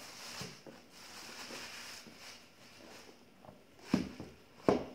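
Thin plastic shopping bag rustling and crinkling as a child pulls a wrapped gift box out of it, then two sharp knocks near the end, the loudest sounds, as the box is handled against the tabletop.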